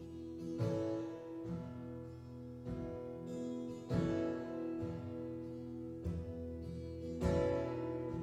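Acoustic guitar strumming chords in an instrumental passage between sung lines, a fresh chord struck about every second and a half and left to ring.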